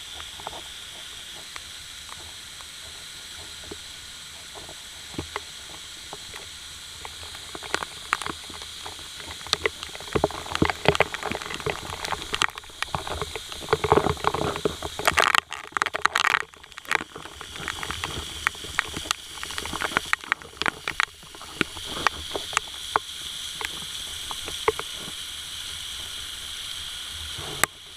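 Steady rushing hiss of waterfall water, with a stretch of irregular clicks and knocks in the middle.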